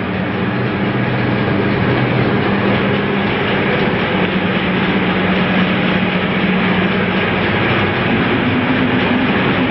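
Soap-making machinery running: a loud, steady mechanical drone with a low hum under it.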